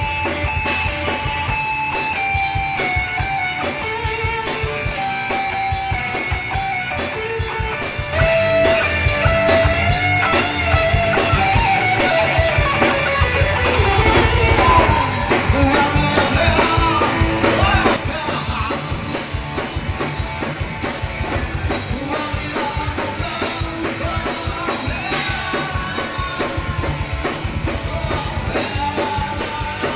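Live rock band playing: an electric guitar lead line with gliding, bent notes over drums. It grows louder from about eight seconds in and drops back at about eighteen seconds in.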